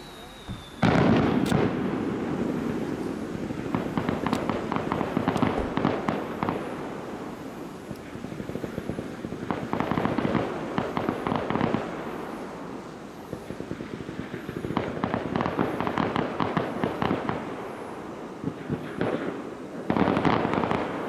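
Aerial fireworks display: a loud shell burst about a second in, then repeated waves of crackling from exploding shells, with another loud burst near the end.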